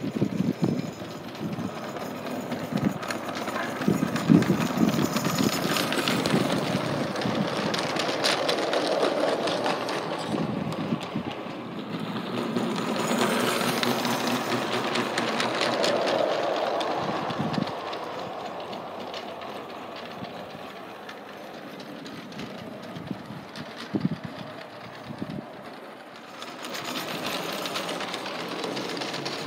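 G-scale battery-powered Salem model diesel locomotive running along garden railway track, pulling a kit-built LGB breakdown crane train, its small electric motor and gears running with wheels clicking over the rails. The sound is loudest through the first half as it passes close, drops away for a while, then rises again near the end.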